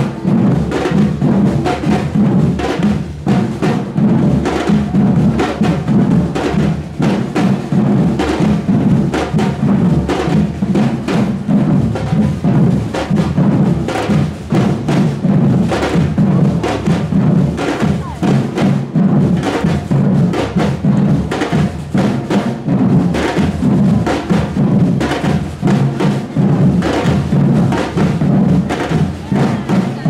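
A street drum band of many players beating large silver bass drums (surdo-style) and smaller drums with sticks, in a steady, driving rhythm with a heavy low beat.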